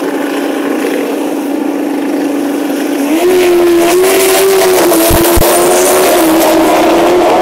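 Drag racing motorcycle engine held at a steady high rev, then much louder and a little higher in pitch from about three seconds in, where it stays.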